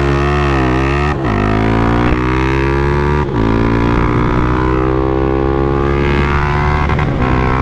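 Honda CB 300F Twister's single-cylinder engine running on ethanol at full throttle, accelerating hard from near standstill. The revs climb steadily in each gear and drop sharply at three upshifts, about one, three and seven seconds in.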